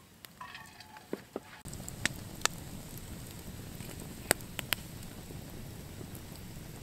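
Wood campfire of split logs burning: a steady hiss broken by sharp crackles and pops, several of them loud. It starts abruptly about a second and a half in, after a quieter stretch with a few faint clicks.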